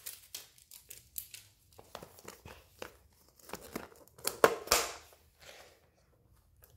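Plastic packaging of a Toy Mini Brands capsule ball crinkling and crackling as it is handled and opened: scattered soft rustles and clicks, with a louder flurry a little past the middle.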